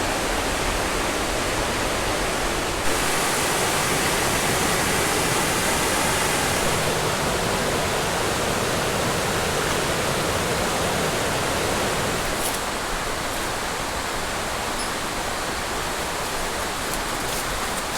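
Steady rush of a mountain river's flowing water, a constant hiss that grows a little brighter for a few seconds early in the stretch.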